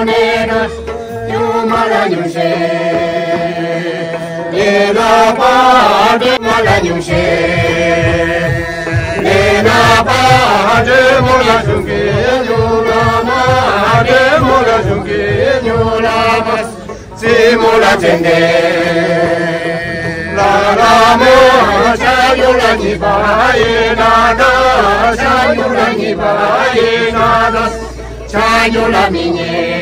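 A group of voices singing a slow traditional song in unison, with long held, wavering notes sung in phrases separated by short breaths.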